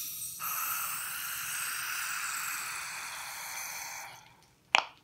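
Carbon dioxide hissing out of a shaken can of Coca-Cola through the partly lifted pull tab, a steady hiss that fades and stops about four seconds in as the pressure escapes without the soda foaming over. A sharp click near the end.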